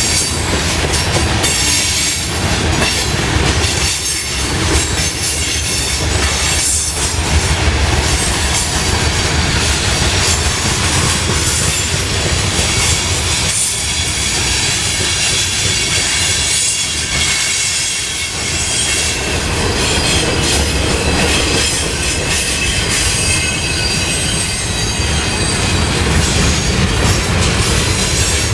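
Norfolk Southern mixed freight train rolling past: tank cars, covered hoppers and boxcars running steadily over the rails, with a steady high-pitched squeal from the steel wheels and a clatter of wheels over the rail joints.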